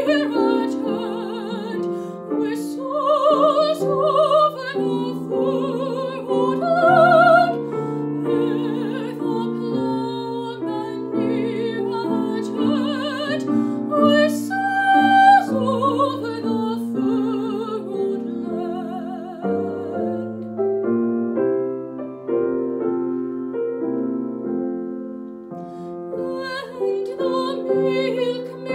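A young woman singing a classical solo with a wide vibrato, accompanied by a grand piano. Past the middle the voice drops out for a piano-only passage, and the singing comes back in near the end.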